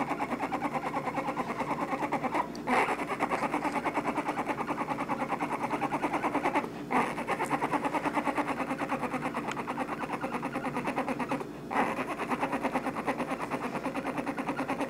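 Bear cubs snoring with a fast, steady pulsing, in stretches of about four seconds broken by brief pauses; each new stretch starts louder.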